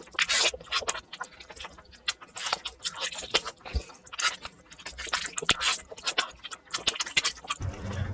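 Close-up eating sounds of someone eating brinjal (eggplant), sped up four times: a fast, irregular stream of chewing, smacking and wet mouth clicks. A steady low hum starts just before the end.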